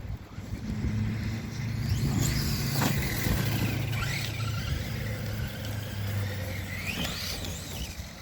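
Redcat Shredder RC monster truck driving, its electric motor whining up and down in pitch several times as the throttle is worked, over a steady low hum.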